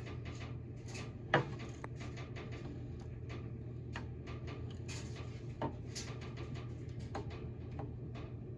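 Scattered clicks and knocks of tools and metal engine parts being handled during an engine teardown, with one sharp knock about a second and a half in and a smaller one past the middle, over a steady low hum.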